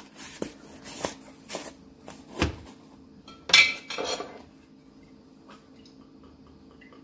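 Kitchen clatter: a run of knocks and clinks as seasoning containers and a bottle are handled and set down around a pot on a glass stovetop. The two loudest knocks come about two and a half and three and a half seconds in. Then only a faint steady hum remains.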